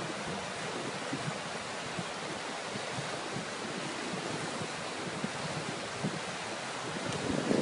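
Steady rushing hiss of flowing floodwater, even throughout with no distinct events.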